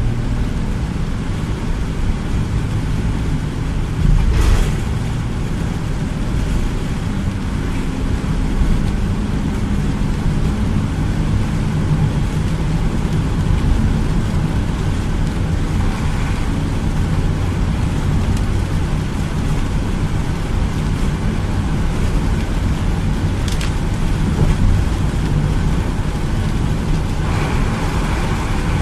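Steady cabin noise of a vehicle driving on a rain-soaked highway: a low engine and road drone with the hiss of tyres on wet pavement. A brief knock comes about four seconds in, and a sharp click comes past the middle.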